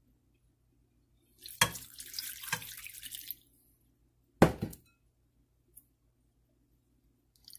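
Water poured into a bowl of sliced raw potatoes for about two seconds to wash them, with a sharp knock as the pouring starts and another knock about a second after it stops.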